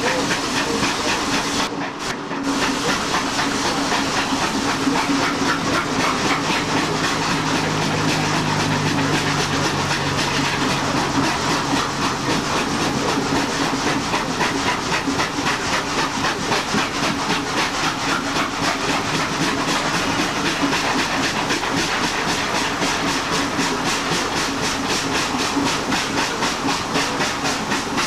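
Steam locomotive working hard up a grade as a banking engine: a fast, even beat of exhaust chuffs with hissing steam, together with the carriages' wheel and rail noise. The sound briefly cuts out about two seconds in.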